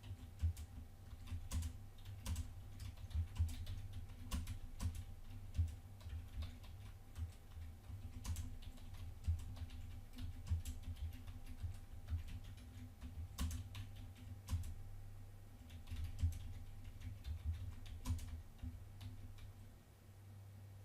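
Typing on a computer keyboard: irregular keystrokes and clicks, entering text, over a steady low hum.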